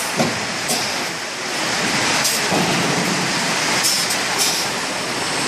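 Extrusion blow molding machine running with a steady mechanical hiss, broken by several short sharp bursts of hissing air, like pneumatic valves venting as the machine cycles.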